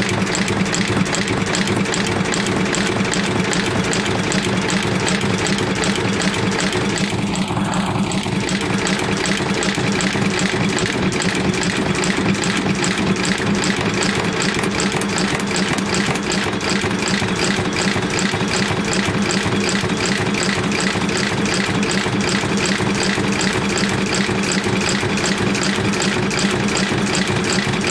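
Landis Model 12 K curved-needle sole stitcher running steadily as it stitches a leather sole: a rapid, even mechanical beat over a steady low hum.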